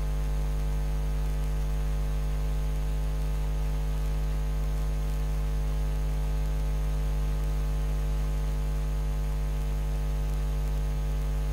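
Steady electrical mains hum, a low unchanging hum with a stack of overtones and a little static hiss.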